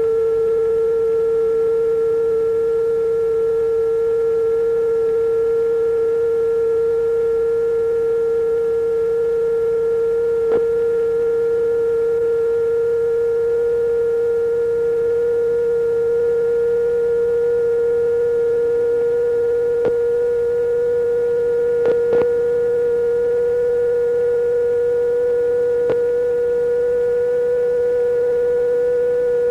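Electronic sine-wave tone held near 470 Hz and rising very slowly in pitch, with fainter steady tones above it. A few faint clicks come about a third of the way in and again between two-thirds and near the end.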